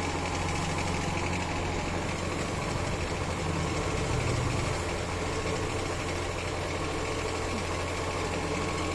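An engine idling steadily, with a constant low hum that doesn't rise or fall.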